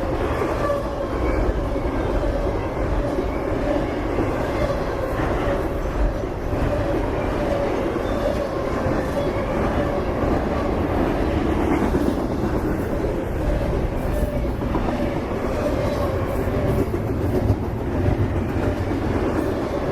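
CSX freight train rolling past, its cars' wheels giving a steady rumble with a clatter over the rail joints.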